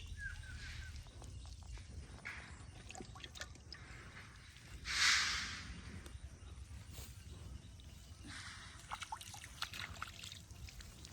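Water sloshing and dripping, with small clicks, and one louder splash lasting about a second, about five seconds in.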